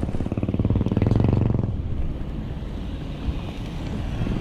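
A small motorcycle engine running close by, loudest about a second in and fading out before the two-second mark. A steady rushing of wind and road noise follows.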